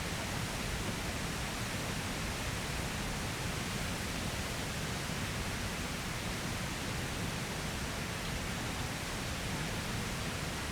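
Waterfall rushing, a steady even roar of falling water.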